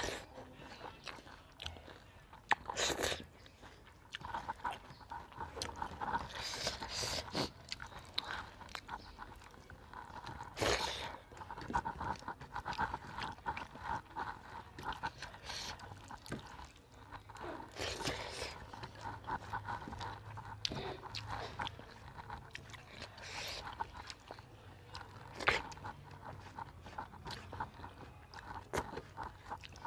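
A person eating rice by hand, close up: chewing and wet mouth sounds, with fingers scraping and mixing rice on a steel plate in short, scattered clicks and scrapes.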